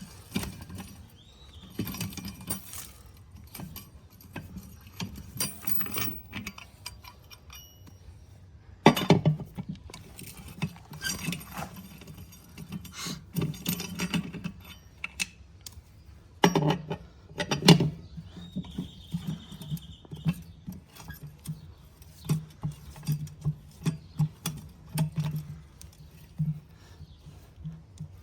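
Metal clinks, rattles and knocks of a four-way cross lug wrench working the lug nuts off a John Deere 770 tractor wheel, the loose nuts clinking against each other and the wrench. A few louder knocks stand out along the way.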